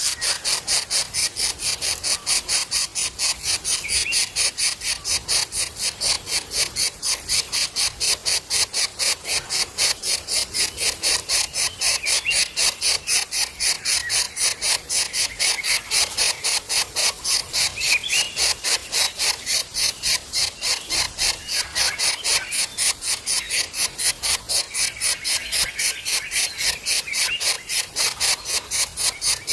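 Steady, evenly pulsed high-pitched insect rasping, about three pulses a second. Faint thin chirps, plausibly nestlings calling, come and go behind it.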